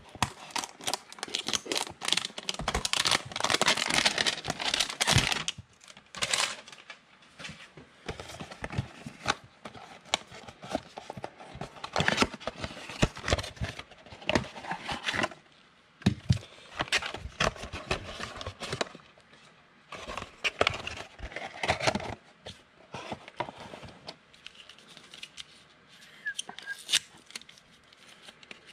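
A 2020 Panini Mosaic football card hanger box being opened by hand: cardboard and wrapper crinkling and tearing, in a dense run for the first few seconds, then in short intermittent rustles.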